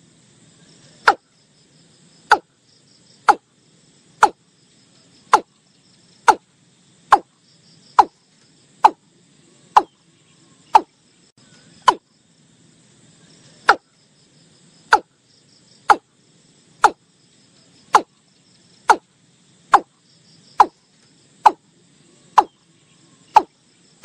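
Watercock calling: a long, regular series of short, sharp 'kok' notes, about one a second, with one brief pause near the middle. Crickets trill faintly underneath.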